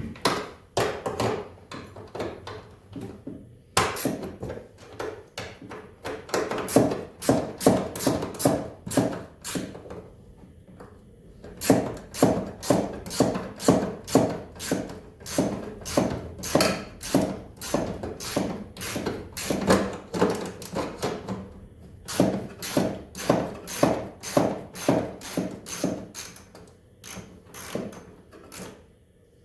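Ratchet wrench being worked on a bolt: runs of quick, evenly spaced clicks, two to three a second, with short pauses between runs.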